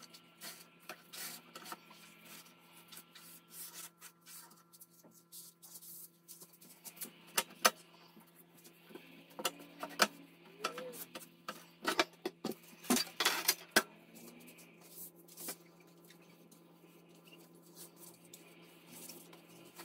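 Gloved hands wiping and rubbing an oven door's glass pane with a sponge, with scattered clicks and knocks from handling the metal door frame and glass, busiest in the middle stretch.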